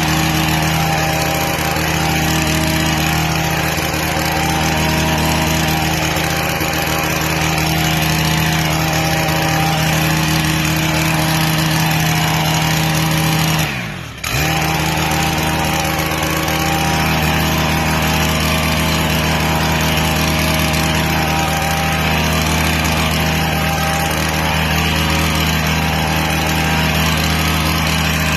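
Hedge trimmer's small engine running at a steady high speed; about halfway through, the revs drop sharply for a moment and pick straight back up.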